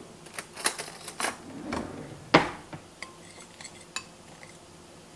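Light clinks and knocks of a ceramic bowl and kitchen utensils being handled on a counter: about a dozen scattered knocks in the first four seconds, the loudest about two and a half seconds in.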